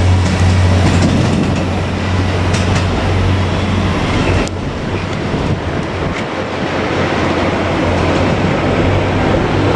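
JR Kyushu KiHa 200 diesel railcar passing close by, its engine giving a strong low hum over the noise of the wheels clattering along the rails. About halfway through there is a sharp click and the hum briefly drops.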